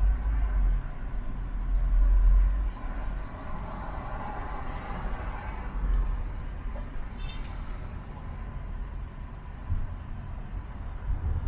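City traffic noise heard while driving: a steady low road rumble that surges briefly near the start and about two seconds in, with a swell of passing-vehicle noise in the middle and a few faint high squeaks.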